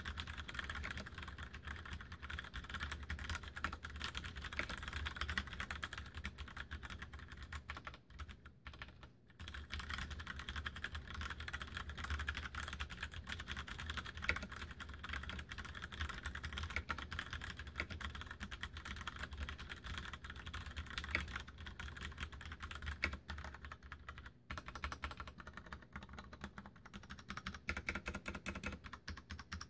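Continuous fast typing on an Mstone Groove87 mechanical keyboard with brown switches: a dense run of key clacks, with a short pause about a third of the way in and sparser keystrokes near the end.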